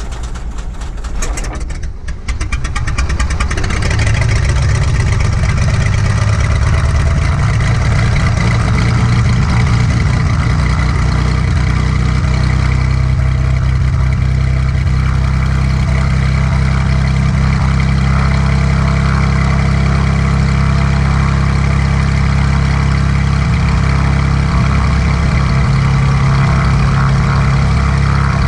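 A Cessna's piston aircraft engine being cranked, catching about two seconds in, then running steadily and loudly.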